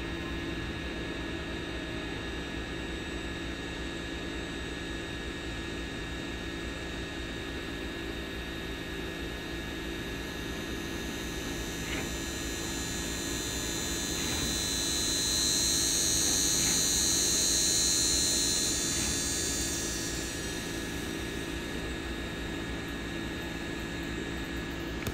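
Camera drone's motors and propellers humming steadily in flight, a whine with fixed pitches over a hiss. A higher whine swells for several seconds past the middle, then eases back.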